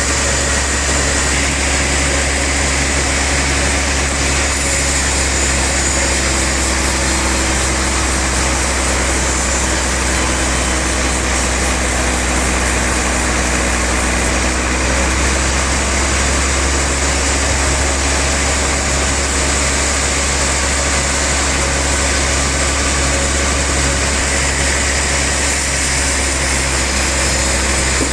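Sawmill machinery running steadily with a loud, even, low engine drone that does not change.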